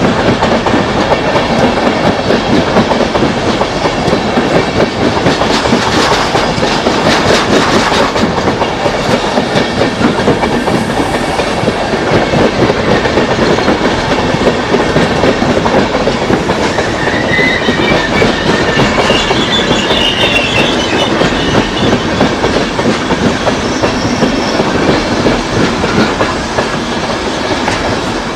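Passenger coaches of an electric-hauled express train rolling past, wheels clattering rapidly and steadily over rail joints and points. A high wheel squeal rises briefly a little past the middle, and the sound eases slightly as the last coach goes by near the end.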